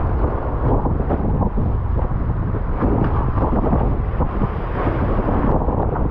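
Strong wind buffeting the microphone aboard a sailboat sailing in big seas: a loud, fluttering rumble of wind with the rush of the boat through the water.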